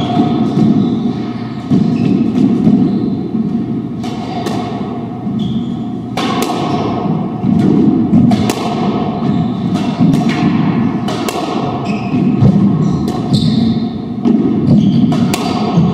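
Squash doubles rally: the ball is struck by racquets and smacks off the court walls in a run of sharp hits at irregular intervals. Short squeaks of rubber-soled shoes on the hardwood floor run through it.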